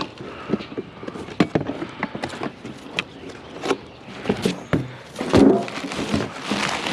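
Irregular knocks, clicks and clatter of discarded household items being handled and moved about, with a louder thump about five and a half seconds in.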